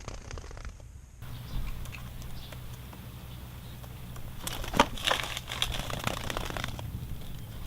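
Crinkling, crackly rustles over a low steady hum, bunched together about five seconds in.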